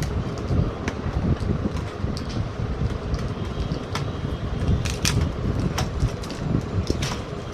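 Scattered sharp plastic clicks and taps from an LCD monitor's casing and parts being handled and taken apart, over a steady low background rumble.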